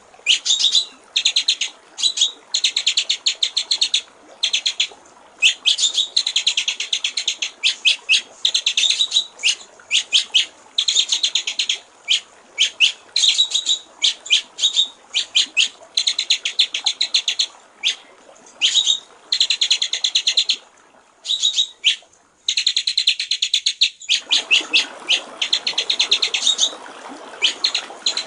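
White-rumped shama (murai batu) singing in long runs of rapid, rattling repeated notes with short pauses between them. Trickling water runs beneath it, dropping out briefly about twenty-two seconds in and coming back louder.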